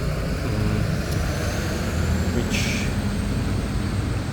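A heavy road vehicle's engine running nearby with a steady low rumble, with a short hiss of air a little past halfway through.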